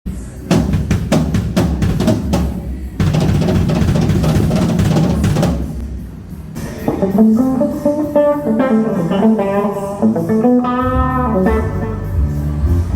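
Band sound check: a drum kit struck in a run of single hits, then a few seconds of dense drum and cymbal wash, then a Telecaster electric guitar playing bending, gliding notes over a heavy low end.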